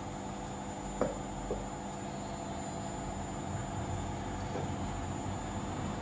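Potted orchids being handled: two light knocks about a second in, half a second apart, as a plastic pot meets its ceramic cachepot, over a steady hum.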